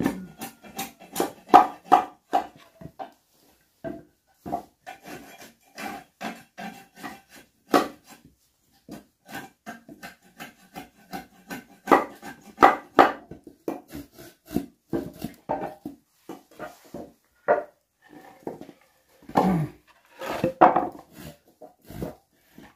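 Machete-like knife chopping and splitting weathered wooden planks: an irregular string of sharp knocks, a few a second, of the blade striking the wood, mixed with boards knocking together as they are handled.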